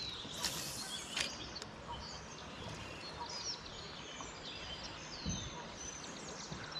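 Quiet outdoor ambience: a steady low hiss with small birds chirping faintly in the background. Two short, sharp swishing sounds about half a second and a second in.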